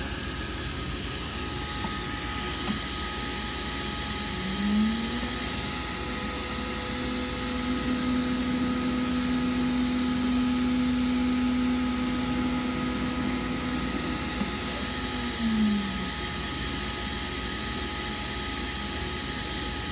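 5.5 hp Colombo router spindle on a MultiCam 3000-series CNC router: a quiet whine that rises as it ramps up about four seconds in, holds steady at 15,000 RPM for about ten seconds, then winds down. A steady background hiss runs underneath.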